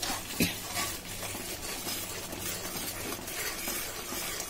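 A metal spoon stirring and scraping a sizzling tomato masala in a steel kadhai, with a sharp clink of metal on metal about half a second in. The masala is being fried down until the tomatoes are fully cooked.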